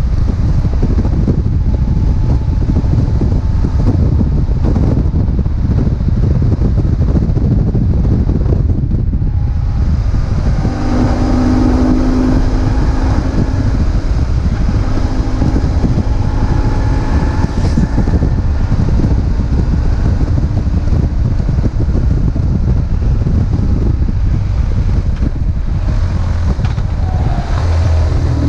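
BMW R1150GS's boxer twin engine running while riding, under heavy wind noise on the microphone. A steady engine tone comes through more clearly from about ten seconds in.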